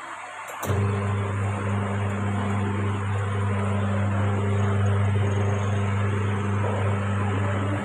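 Tire changer's electric motor running with a steady low hum, switching on under a second in and cutting off near the end.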